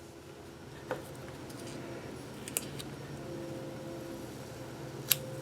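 A few light clicks and taps of small objects being handled, over a faint steady hum.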